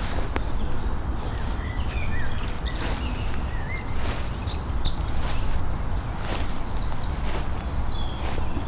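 Footsteps in grass at a walking pace, about one a second, under several birds chirping and singing, over a steady low rumble.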